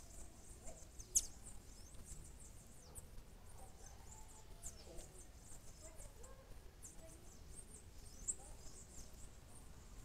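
Faint, high-pitched short chirps of small forest birds, scattered irregularly, with one sharper, louder chirp about a second in. Fainter, lower wavering calls sit underneath.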